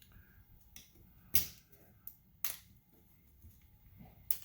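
Sharp plastic clicks and taps of small game-controller parts being handled and set down on a work surface: three louder clicks, about a second and a half in, midway and near the end, with fainter taps between.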